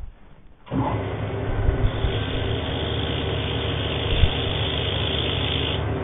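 Wood lathe running at sanding speed, its motor humming steadily, with sandpaper held against the spinning hardwood base adding a steady hiss. The sound comes in under a second in after a brief quiet moment, and the sanding hiss grows stronger about two seconds in.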